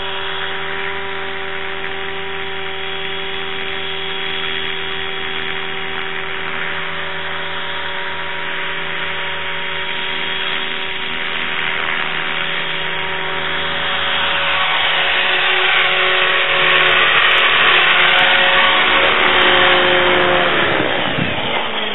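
Small engine running steadily at high speed, growing louder and rougher for the last several seconds, then dropping sharply in pitch near the end as it is throttled down.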